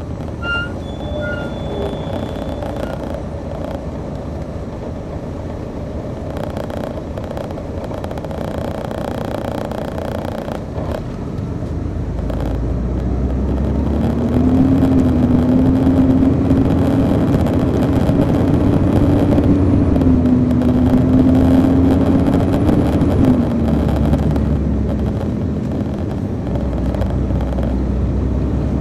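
On-board sound of a 2002 MCI D4000 coach's Detroit Diesel Series 60 diesel engine: a steady low rumble at first, then the engine note rises and grows louder as the bus pulls harder about halfway through. The note dips briefly and falls away a few seconds before the end.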